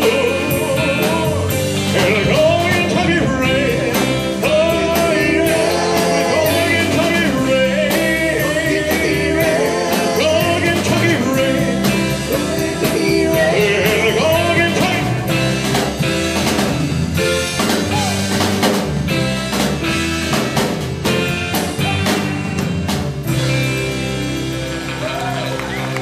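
Live rock band playing a ballad, with drum kit, electric bass, guitar and keyboards, and a male singer's voice.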